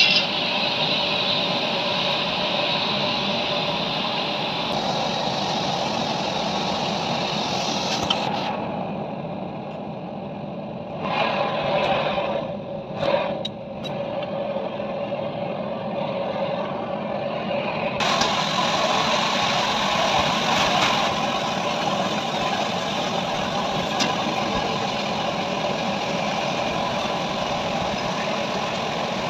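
Gas torch flame burning steadily into an iron pan, a continuous rushing noise. For several seconds in the middle it turns quieter and duller, with a couple of short louder bursts.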